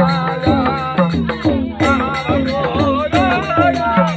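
Loud Indian folk-style music: a drum beat whose pitch drops after each stroke, with a wavering melody above it and a shaker-like rattle.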